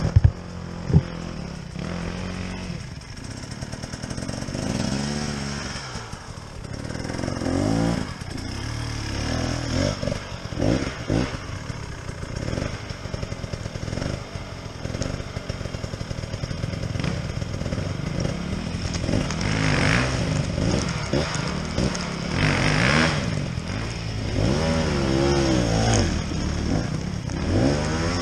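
Dirt bike engines revving up and down again and again as riders struggle up a steep, rough hillside, over a steady low engine drone. Two sharp knocks come right at the start.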